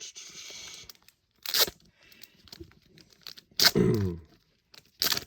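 Trading card pack wrapper being torn open and crinkled, in three sharp bursts of tearing. After the middle burst there is a short voice sound that falls in pitch.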